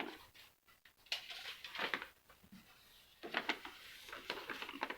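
Faint scattered clicks and light knocks in two clusters, one starting about a second in and another from about three seconds in.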